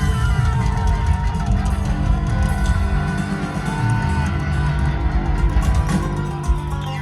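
Live country band playing with electric guitar and a heavy bass beat, heard loud through a crowd's recording, with the crowd faintly audible.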